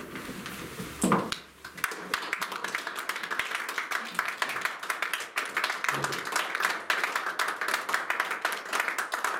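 Small audience applauding, the clapping starting about two seconds in and carrying on briskly. Just before it, about a second in, comes a brief loud call from a voice, the loudest moment.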